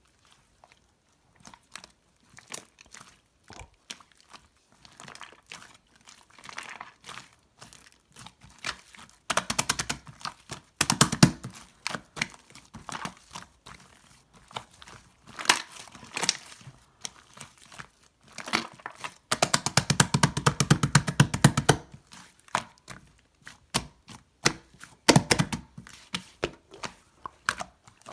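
Slime mixed with shaving foam being squeezed and stretched by hand, making wet clicks and pops of trapped air, with two stretches of rapid, dense clicking about a third of the way in and about two thirds in.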